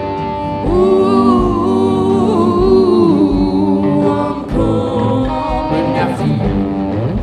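Live blues-rock band playing electric guitars, bass guitar and drums, with long wordless sung notes held over the band about a second in and again past the middle.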